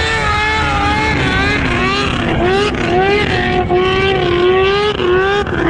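Snowmobile engine running at high revs as the sled skims across open water, its pitch dipping and rising several times as the throttle is worked.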